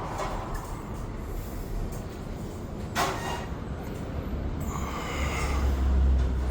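Sawmill machinery running with a steady low noise. A sharp knock comes about three seconds in, and a louder low hum builds near the end.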